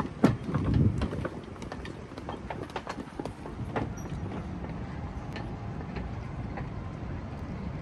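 Footsteps clicking on hard paving in a busy city-street background, with a loud low thump in the first second.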